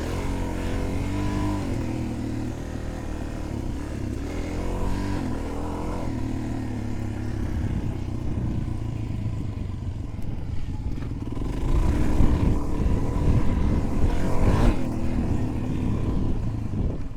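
Suzuki DR-Z400's single-cylinder four-stroke engine running while ridden, its pitch rising and falling as the throttle is worked. A louder, rougher stretch with knocks and clatter comes a little past the middle.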